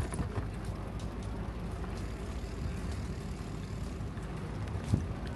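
Steady low rumble of wind and road vibration picked up by a camera mounted on a moving bicycle, with scattered small knocks and one louder thump near the end, typical of riding over bumps.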